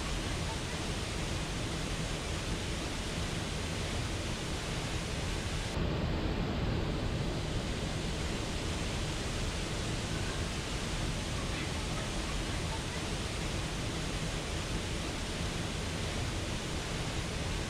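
Steady rushing roar of a waterfall pouring into a pool, with the top of the hiss dulling slightly about six seconds in.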